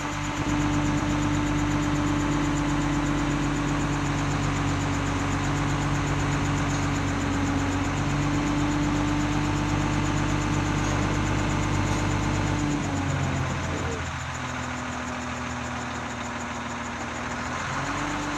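Mobile crane's diesel engine running steadily at raised speed, dropping to a lower speed about thirteen seconds in and picking up again near the end.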